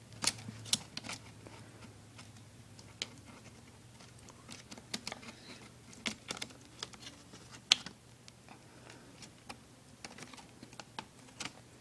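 Irregular light clicks and taps of plastic and small metal parts being handled as an IBM ThinkPad laptop is taken apart to free the motherboard, with one sharper click about three-quarters of the way through. A faint steady low hum runs underneath.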